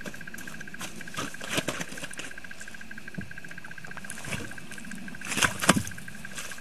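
Crunching, knocking and scraping of a large slab of lake ice being hauled out of a hole onto the ice, with boots crunching in snow. The loudest scrapes and knocks come about five and a half seconds in, as the slab is dragged over the edge.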